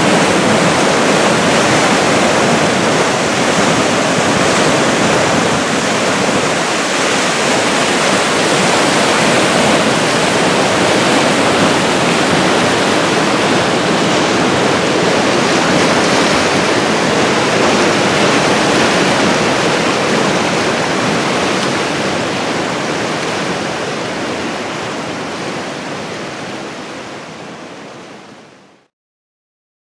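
A brook in flood, after a thaw and a downpour, rushing through rapids: a loud, steady rush of churning white water. It fades out gradually over the last several seconds.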